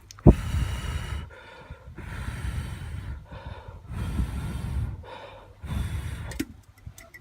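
A sharp knock, then four heavy rushes of breath close to the microphone, each about a second long.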